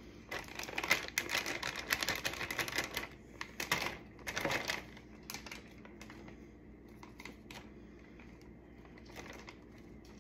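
A plastic bag of steamed vegetables crinkling and a utensil clicking against a food container as vegetables are portioned out: a busy run of clicks and rustles, two louder rustles a little later, then only a few faint clicks.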